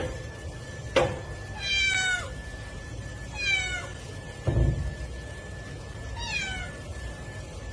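A cat meowing three times, each call short and falling in pitch. There is a sharp click about a second in and a dull thump midway.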